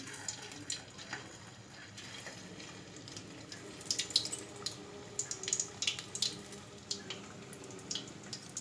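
Flour-and-semolina-coated potato pieces deep-frying in hot oil in a kadai: a steady sizzle with sharp crackles and pops that come thicker from about three and a half seconds in.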